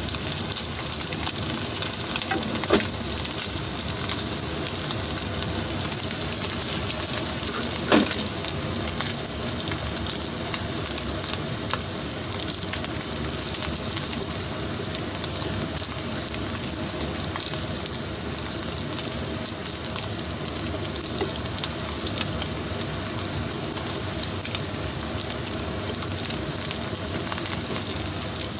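Hot oil sizzling and crackling steadily in a frying pan as coated black sea bream offcuts fry as karaage, with a couple of light clicks.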